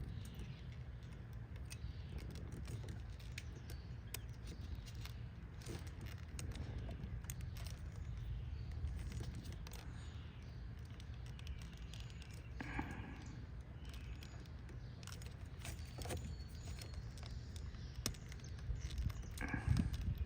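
Faint scattered clicks and rattles of small plastic parts being handled: an ignition coil pack connector and its terminals being fitted. A steady low rumble runs underneath, with a slightly louder handling sound about thirteen seconds in and again near the end.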